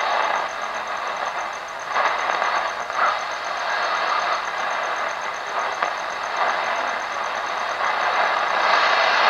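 Sonatec PRI-037U portable radio on the AM band giving out hissing static as its dial is turned between stations, with a high, rapidly pulsing whine running through the noise.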